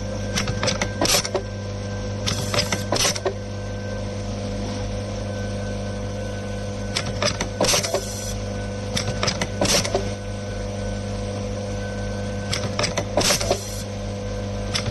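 Wire seal inserting machine running: a steady motor hum under clusters of sharp mechanical clacks every few seconds, as it threads rubber waterproof seals onto wire ends. Three of the clusters carry a short hiss.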